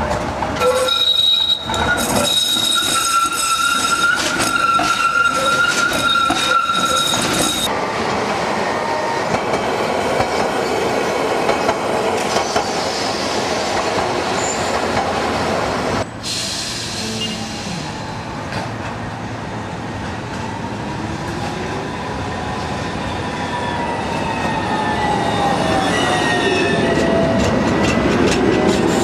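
Milan street trams on rail: first an articulated tram's wheels squeal steadily on a curve for about six seconds, then a vintage Peter Witt tram rolls along the track with a rumbling noise. After a break, a modern low-floor tram passes with a whine that slowly rises and falls.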